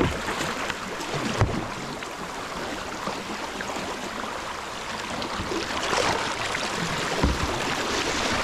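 Kayak paddle strokes splashing through small whitewater riffles over the steady rush of river water and falling rain, with a few sharp knocks.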